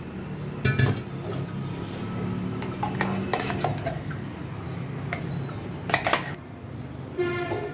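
Stainless-steel mixer-grinder jar and spoon clinking and knocking against a steel bowl as thick rice-and-curd batter is scraped out. A scatter of sharp clinks, the loudest about six seconds in, and a brief metallic ring near the end.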